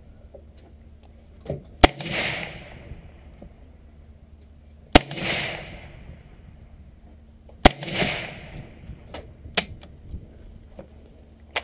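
Three single shots from a suppressed AR-15 rifle, about three seconds apart, each a sharp crack followed by a short fading echo. A few light clicks follow near the end.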